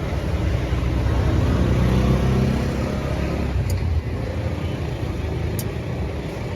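A motor vehicle's engine running, swelling about two seconds in and then settling to a steady rumble.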